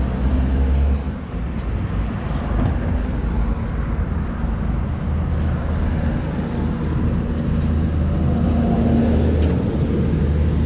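BMW R1200GS Adventure's flat-twin engine running steadily with a deep low rumble.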